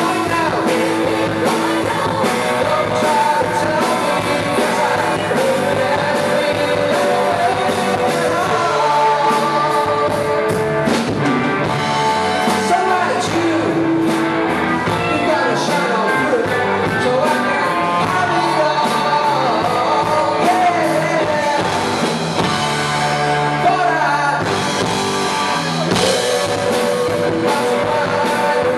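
Live rock band playing a song with electric guitars, bass guitar, drum kit and singing.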